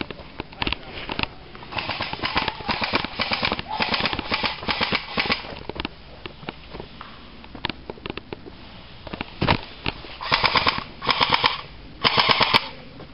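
Airsoft guns firing rapid full-auto bursts: strings of quick shots through the first few seconds, a pause, then three short bursts about a second apart near the end.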